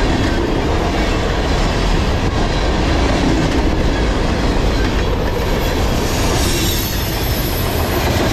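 Loaded freight cars of a long CSX freight train (tank cars, covered hoppers and boxcars) rolling past close by at about 42 mph, a loud, steady rumble of steel wheels on rail with rhythmic clickety-clack. A faint high wheel squeal joins in over the last couple of seconds.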